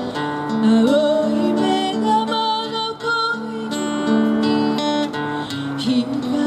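Live acoustic guitar strummed and picked, accompanying a woman singing a slow, gentle melody.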